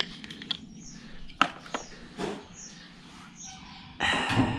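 Small birds chirping in short, high, falling notes, repeating every second or so. A couple of sharp clicks come about a second and a half in, and a louder scraping, rustling noise near the end.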